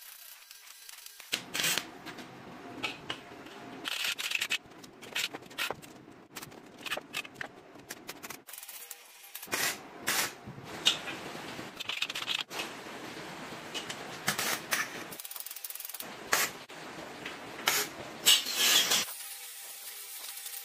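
Electric arc welding on steel tubing: a sputtering, crackling arc with sharp pops, struck three times for several seconds each with short pauses between the welds.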